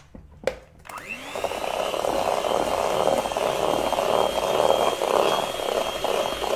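Electric hand mixer beating an egg into creamed butter and sugar. After a sharp click about half a second in, the motor starts about a second in, spins up with a brief rising whine, then runs steadily with a high whine over the churning of the beaters in the batter.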